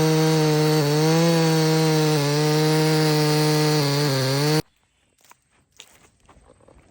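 Proyama 68cc two-stroke chainsaw running at high revs under load, ripping a slab through a log in an Alaskan chainsaw mill, its pitch dipping slightly several times as the chain loads up. It cuts off abruptly about four and a half seconds in, leaving only faint small sounds.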